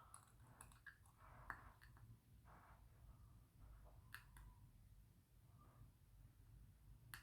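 Faint, scattered clicks of small watchmaker's tools on the metal plate of a pocket watch movement. A handful of sharp ticks, the clearest about four seconds in and just before the end, over near silence.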